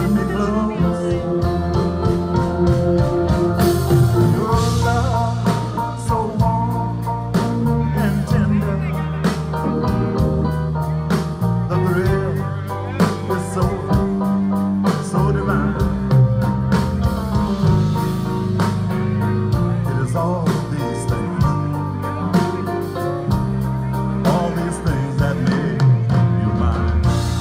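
Live band playing with grand piano, Hammond organ, electric bass guitar and drums.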